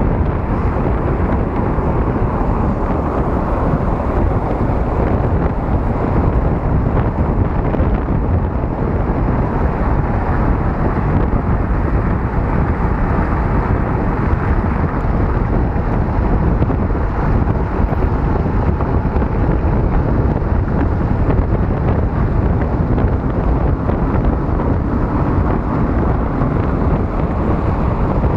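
Steady rushing wind noise on the microphone from riding a bicycle at speed, with car traffic running alongside.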